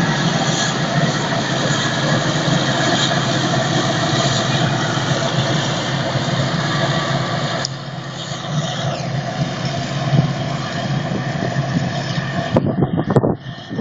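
Claas Jaguar 840 self-propelled forage harvester running under load as its Kemper rotary header cuts and chops green rye, a loud steady machine drone. It grows quieter and duller about eight seconds in as the machine moves away, and a few irregular bursts of noise come near the end.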